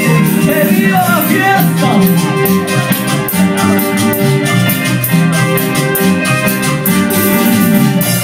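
A band playing loud Latin dance music with guitar, keyboard and a steady, fast percussion beat. A singing voice glides in the first couple of seconds.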